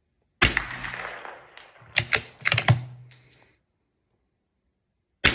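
Anschutz 1903 .22 rifle firing a subsonic round, followed about a second later by a faint tick of the bullet striking the steel target far downrange, the delay set by the distance. Then a quick run of sharp metallic clicks as the bolt is worked, and a second shot near the end.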